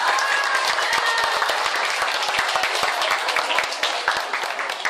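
A small crowd applauding, many hands clapping quickly and unevenly, with voices calling out over it in the first second or so.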